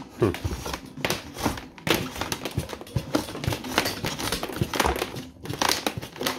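Handling noise from a water-detection sensor's cable being pulled and gathered up over a plastic battery tray: irregular rustles, scrapes and light taps in quick succession.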